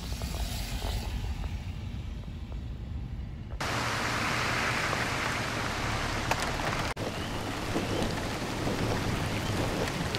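Steady heavy rain hissing, starting suddenly about three and a half seconds in after a low rumble.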